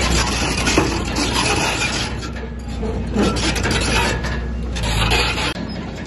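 Komatsu bulldozer working: a steady low engine rumble under dense metallic clanking and scraping, typical of a crawler's steel tracks and blade.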